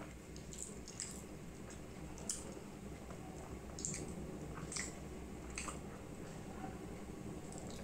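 Close-up eating and drinking mouth sounds: wet squelches of chewing, then sips from a glass, with several short sharp smacks and clicks scattered through, the loudest a little over two seconds in and near four seconds in.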